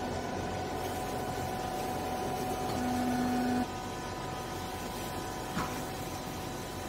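Hydraulic baler running: a steady machine hum with whining tones. About three and a half seconds in a short, louder low tone ends and the level drops as one tone cuts off. A single short click comes near the end.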